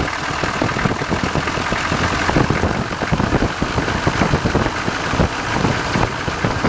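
Diesel truck engine idling with a steady, rapid clatter. The fast-idle solenoid on the injection pump has dropped out, so the engine is at its normal slow idle.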